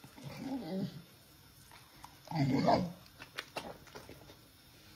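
Bull terrier vocalizing: a short sound in the first second, then a louder one about two and a half seconds in.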